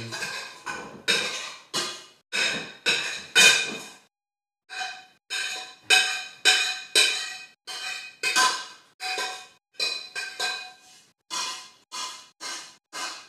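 Metal kitchenware scraped and knocked in quick repeated strokes, about two a second, with a short break about four seconds in; each stroke carries a brief metallic ring.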